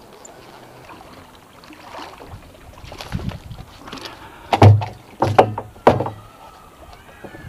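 A speared gar being hauled aboard on a bowfishing arrow, knocking against the boat and a plastic bucket: a softer thump, then three loud knocks about two-thirds of a second apart.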